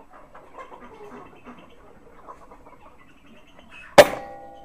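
A single shot from an Air Arms S410K pre-charged air rifle about four seconds in, a sharp crack with a short ringing tail, over the low clucking of chickens.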